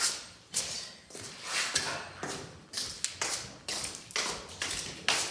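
Footsteps on a hard floor, about two steps a second.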